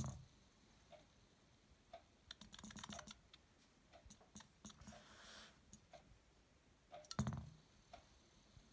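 A small circuit-board LED spinning top is twirled by hand on a hard surface: a sharp knock as it is set spinning, then light scattered clicks and rattles as it spins, and another louder knock about seven seconds in. A faint tick repeats about once a second.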